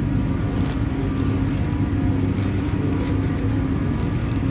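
Inside a metro train carriage: the steady running noise of the train, a low rumble with a held hum and a few faint clicks.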